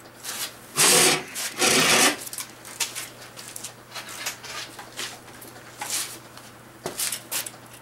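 Hand ratchet and socket being worked on a bolt: two loud rasping bursts of ratchet clicking about a second in, then lighter scattered clicks and scrapes.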